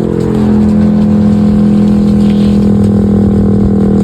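Federal Signal STL-10 electromechanical warning siren sounding a loud, steady tone up close, its rotor chopping the note.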